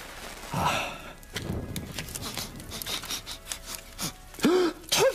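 A match rasped against a matchbox, then light crackling and clicks as a flame catches. A man's short vocal sound comes about half a second in, and a louder alarmed vocal exclamation near the end.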